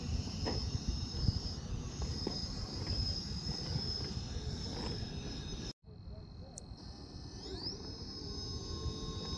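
High-pitched insect chorus, steady throughout, over a low rumbling noise. The sound cuts out for an instant about six seconds in.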